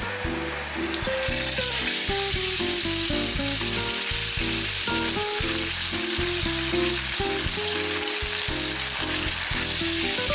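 Whole sea bream frying in hot oil in a pan, the oil sizzling steadily; the sizzle swells about a second in as the fish goes into the oil. Background music plays underneath.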